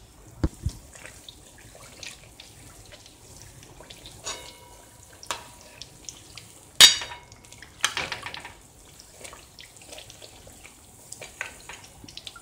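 Satpuras frying in ghee in a metal kadhai: a faint steady sizzle as hot ghee is ladled over them, with a steel ladle and slotted spoon clinking and knocking against the pan. The loudest clink comes about seven seconds in.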